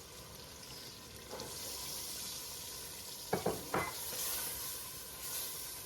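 Chickpeas being stirred into frying onion-tomato masala in a pot: a steady sizzle that grows louder about a second and a half in, with a few brief clatters near the middle.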